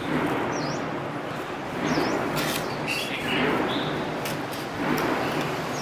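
A small product box being opened and its packaging handled: rustling with a few sharp clicks, and a few short high bird chirps in the background.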